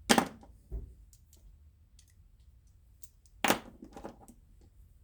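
Petrified Fish PF959 folding knife blade being worked by hand: two sharp snaps about three and a half seconds apart, each followed by a few lighter ticks.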